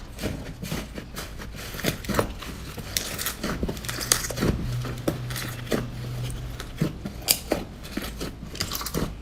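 Slime being handled by hand: a run of irregular sticky clicks and crackles.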